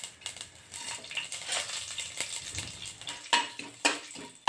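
Mustard seeds crackling and popping in hot oil in an aluminium pressure cooker, with fenugreek seeds and urad dal frying along with them. From about three seconds in, a metal ladle stirs and knocks against the side of the pot several times, and these knocks are the loudest sounds.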